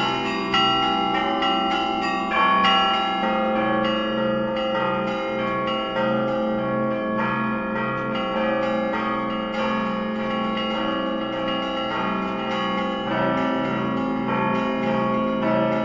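Russian Orthodox church bells rung by hand (zvon): many small and middle bells struck in quick, overlapping patterns over an evenly repeating pulse of lower bells.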